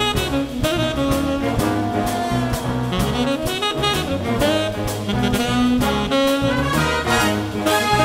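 Big band playing jazz live: tenor saxophone out front with the saxophone, trumpet and trombone sections, over drum kit and bass, with a steady beat of drum strokes.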